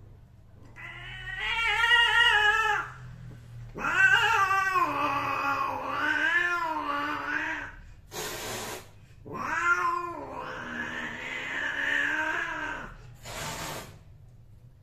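Domestic cats mating: a cat yowls in three long, wavering wails, with two short hisses, one between the second and third wails and one near the end as the pair separate.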